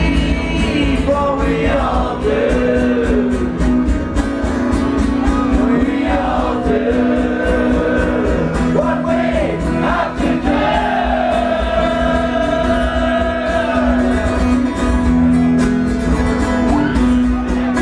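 Live band music with singing that wavers in pitch over a steady beat and a held low note.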